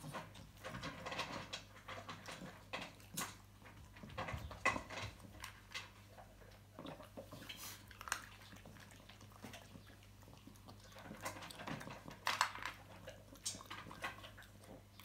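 Dry kibble clicking and rattling in a metal bowl as a hand picks pieces out, with a Boston terrier eating the kibble: scattered short clicks, busiest at the start and again near the end.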